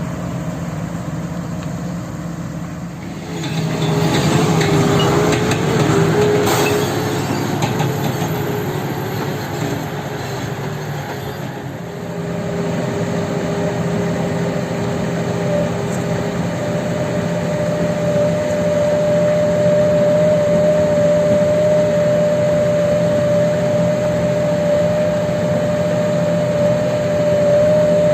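Heavy diesel machinery running steadily. It grows louder about three seconds in and a steady whine comes in during the second half.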